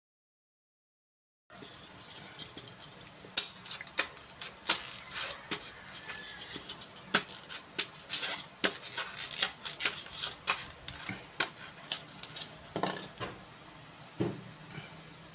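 Popsicle-stick hidden blade stabbing into a block of polystyrene foam again and again: a run of sharp, irregular crunching clicks. They begin after a second and a half of silence, and a couple of duller knocks follow near the end.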